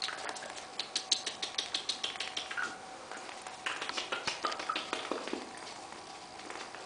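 Pet parrot making rapid clicking and tapping sounds in two quick runs, mixed with a few short soft chirps.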